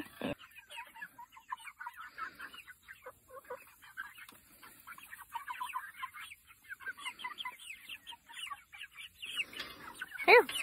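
A small flock of backyard hens clucking softly and almost continuously in quick short notes while they peck at food, with one louder sound near the end.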